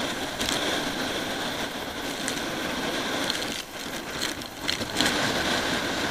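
Baltic Sea storm surf breaking and churning against a pier: a steady rushing of waves and foam, dipping briefly about four seconds in.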